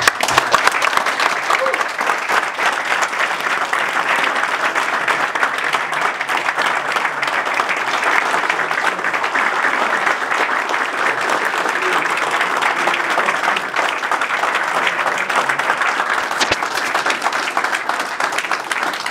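A roomful of people applauding, sustained and steady.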